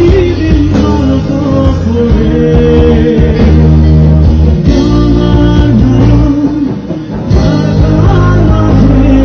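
Live rock band playing loudly, with electric and acoustic guitars and a singing voice, recorded from on stage. The sound dips briefly about seven seconds in.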